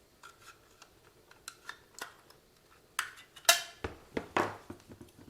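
Plastic case of an RC car transmitter being handled and worked open: a scatter of small hard clicks and short scrapes, faint at first, with louder clacks and scrapes from about three seconds in.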